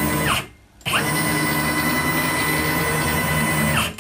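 Stepper motor driving a CNC router's axis through a 5 mm pitch ball screw, its whine rising as it speeds up, holding steady, and falling as it slows to a stop. One move ends just under half a second in, and after a short pause a second move of about three seconds runs and winds down near the end.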